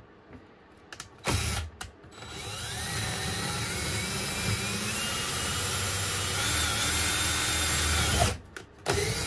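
Cordless drill boring a 7/32-inch pilot hole through plastic trim and wood into a metal stud. A short burst comes about a second in, then a steady run of about six seconds with the motor's whine rising in pitch. It stops briefly near the end, and another short burst follows.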